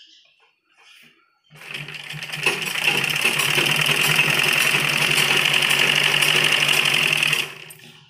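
Gulzar black sewing machine stitching along a folded fabric strip. It starts about a second and a half in, picks up speed, runs fast and steady for about six seconds, then stops.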